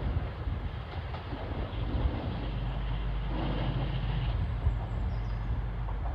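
TransPennine Express diesel train running away from the platform into a tunnel: a steady low engine and wheel rumble on the track.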